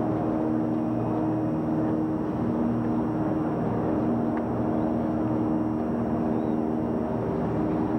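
A steady mechanical drone, several held tones over an even rumble, with no change in level throughout.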